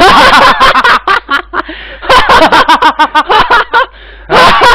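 Men laughing loudly and heartily, in choppy bursts mixed with excited talk.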